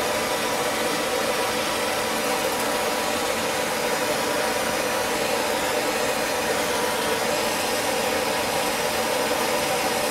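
Handheld propane torch burning with a steady hiss while its flame heats a copper water pipe joint, getting it hot enough for the solder to be drawn into the fitting.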